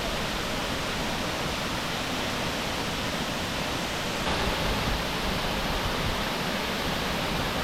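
Waterfall's steady rush of falling water, an even, unbroken hiss.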